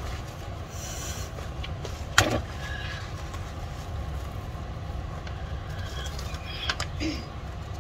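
Plastic bubble mailer rustling and crinkling as hands dig inside it, with a sharp click about two seconds in and a few lighter clicks near the end, over a steady low background rumble.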